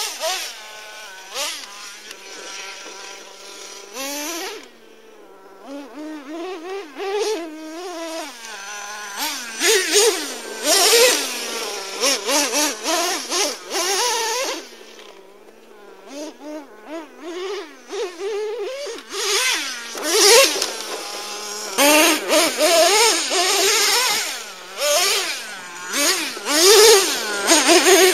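Traxxas T-Maxx RC truck's modified 3.3 nitro engine with a drilled-out resonator pipe, buzzing high as it revs up and down over and over in short throttle bursts. It is quieter for a few seconds twice, then comes back in strings of loud, quick blips.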